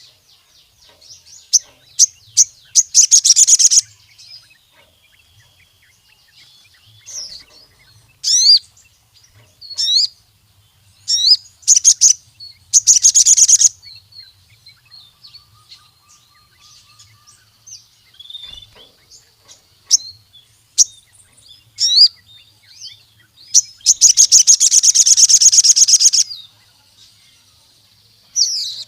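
Ruby-cheeked sunbird (sogon) in full song: sharp high chirps and quick whistled notes, broken by fast rattling trills, the longest lasting about two seconds near the end.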